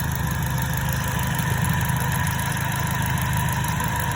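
2010 Chevrolet Cobalt's 2.2-litre four-cylinder engine idling steadily.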